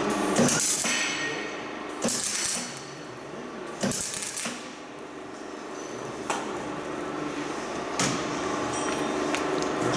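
Three short bursts of crackling hiss in the first half, plausibly MIG tack welds laid on the Toyota Surf 185 steering shaft's collapsible hex section to stop its play. Sharp metal knocks and clinks come in between and after, with a faint steady hum underneath.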